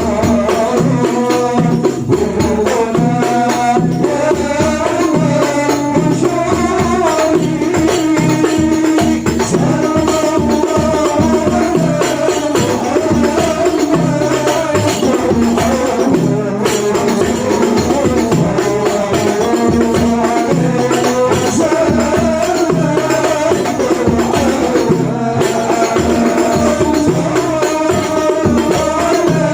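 Devotional Islamic salawat music: a wavering sung melody over frame drums and tambourine jingles playing a steady repeating rhythm.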